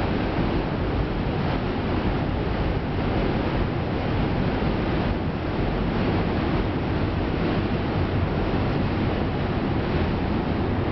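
Steady rushing noise that stays even throughout, with no distinct events.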